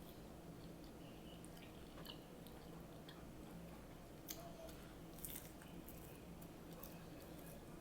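Faint chewing of fried egg rolls, with scattered crisp crackles from the wrappers and a couple of louder clicks about four and five seconds in, over a steady low hum.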